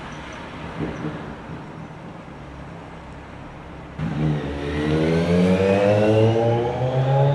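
2015 Kawasaki Z1000's inline-four engine through Vance & Hines slip-on mufflers, running quietly at first, then opening up about four seconds in and accelerating, its pitch climbing steadily.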